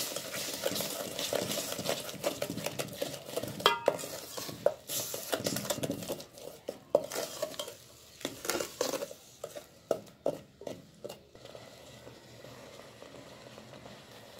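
Wooden spoon stirring thick amla paste and ground rock sugar (mishri) in a steel pot, scraping and knocking against the metal sides. The stirring stops about eleven seconds in.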